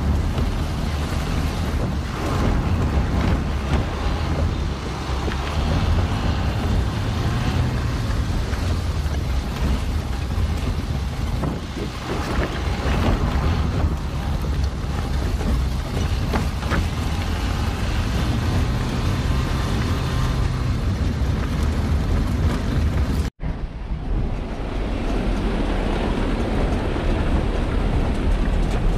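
A vehicle driving over a rough gravel and rock track, with wind buffeting the microphone: a steady, loud, low rumble. It cuts out for an instant about two-thirds of the way through and comes back duller.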